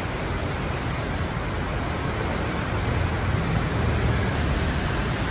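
Swollen floodwater rushing and churning down a concrete-lined creek channel: a steady rushing noise with a low rumble that swells a little past the middle.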